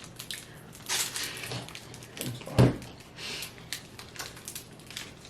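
Plastic snack wrapper crinkling and rustling as it is handled and pulled at, with one dull thump about two and a half seconds in.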